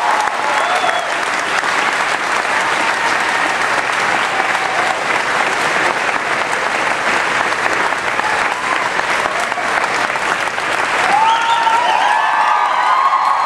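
A large audience clapping and cheering to welcome a guest onto the stage, with shrill screams and whoops rising near the end.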